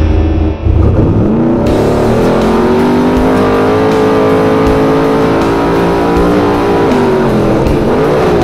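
Desert race trophy truck engine revving up hard, holding high revs at full throttle for several seconds, then dropping and picking up again near the end, with rock music underneath.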